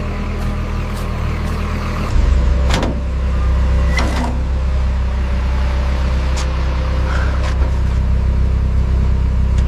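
A car engine running steadily, its low hum growing louder about two seconds in, with a few faint clicks over it.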